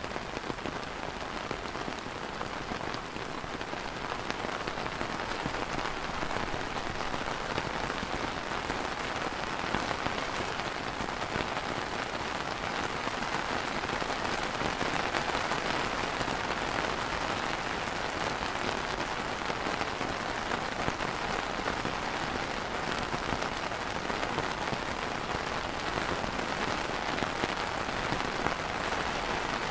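Steady light rain falling on a clear plastic umbrella.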